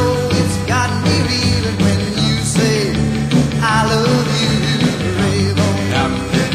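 Rock and roll music playing as a soundtrack.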